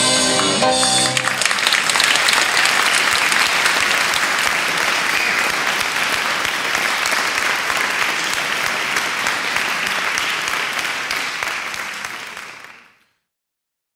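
A held final chord of the band ends about a second in, giving way to an audience applauding, which fades out near the end.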